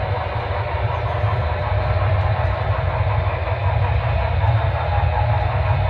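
Sound-equipped Broadway Limited Paragon3 HO-scale steam locomotive running, with a steady deep rumble reproduced through the Broadway Limited Rolling Thunder subwoofer system.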